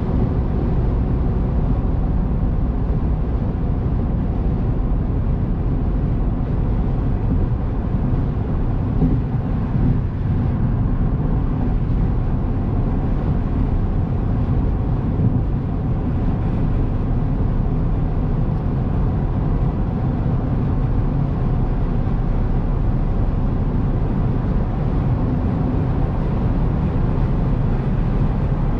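Steady cabin noise of a 2000 Honda Accord LX cruising at freeway speed, heard from inside the car: tyre and road noise with the 2.3-litre four-cylinder engine running underneath.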